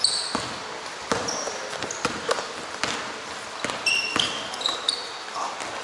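A basketball bouncing on an indoor court in irregular thumps during pickup play, with brief high-pitched squeaks of sneakers on the floor.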